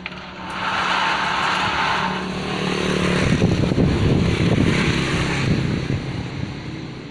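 Glass-cutting machine running on a test: a steady motor hum, with a louder stretch of rough mechanical noise from about half a second in that fades out after about six seconds.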